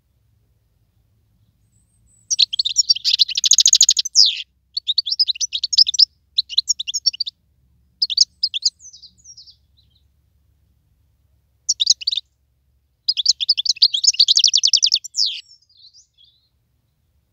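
Wild-caught European goldfinch singing: phrases of rapid, twittering trills. It starts about two seconds in, with short gaps between phrases and a longer pause in the middle before a last long phrase.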